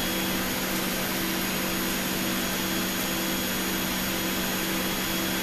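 Steady machine hum and rushing noise from the cone calorimeter's gas-analysis rack running, its sampling pump and cold trap switched on, with a constant low tone underneath.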